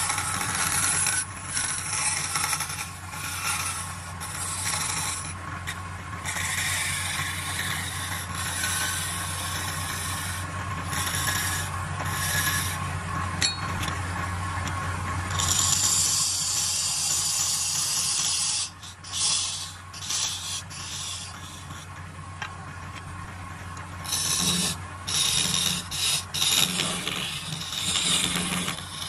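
A wood lathe runs with a steady hum while a hand-held turning tool scrapes and cuts the spinning wooden blank in repeated passes. Each pass gives a noisy stretch of a second to a few seconds, the longest about halfway through and several short ones near the end.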